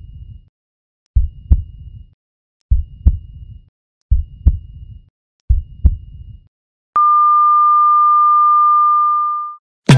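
Heartbeat sound effect: five double thumps about 1.4 s apart, each with a faint high beep like a heart monitor's. About seven seconds in, one long steady beep starts and holds for about two and a half seconds before fading, the flatline of a heart monitor.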